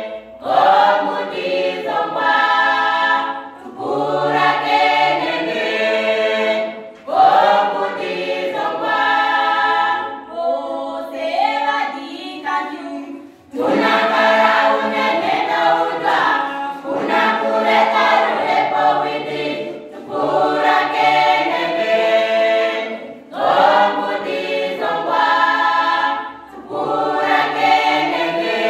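Youth choir singing a gospel song a cappella in harmony, in phrases of two to three seconds with short breaks between.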